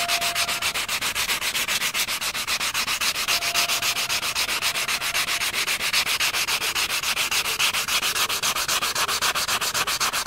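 400-grit sandpaper rubbed by hand over an aluminium Opel GT trim strip, in quick even back-and-forth strokes of about four to five a second. It is sanding off scratches and the anodised coating before polishing.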